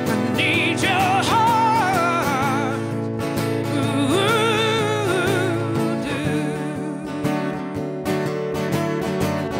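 A man singing long held notes with vibrato, live, while strumming an acoustic guitar; the voice drops out about six seconds in and the guitar strumming carries on alone.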